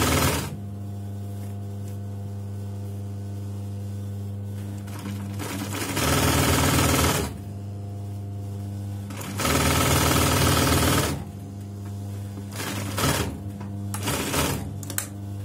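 Domestic electric sewing machine stitching in stop-start runs: a short run at the start, two runs of about a second and a half, then two brief spurts near the end, as it sews through a gathered elastic skirt waistband. A steady low electrical hum fills the pauses between runs.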